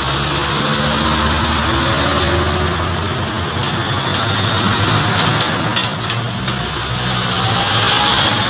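Steady engine rumble and road noise from a moving vehicle as trucks pass close alongside, with an engine note rising near the end.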